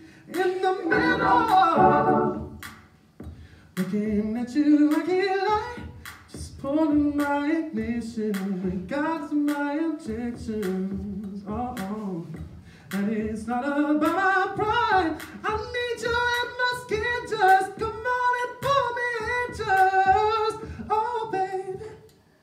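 A man's voice singing a melody into a microphone with no instruments, the notes gliding up and down, with short sharp clicks between them and a brief pause a few seconds in.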